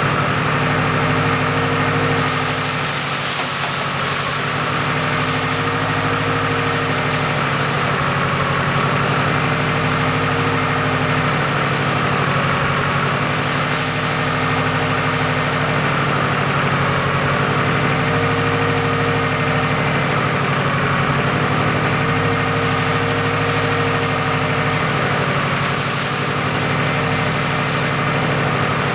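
Freshly built Subaru EJ257 2.5-litre turbocharged flat-four idling on its first start-up, its idle speed rising and falling slightly every few seconds.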